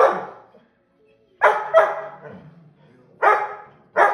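Bouvier des Flandres barking in short bursts at wolves on a television: two quick barks about a second and a half in, another a little past three seconds, and one more at the very end.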